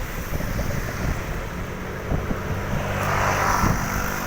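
A motor vehicle engine running with a steady hum, over low rumbling noise. A rush of noise swells briefly about three seconds in, like a vehicle going past.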